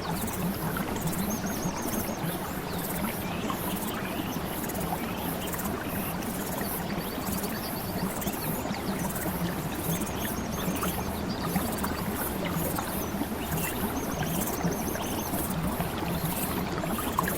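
Steady rushing of flowing water, with a few short, high, rapidly repeated trills.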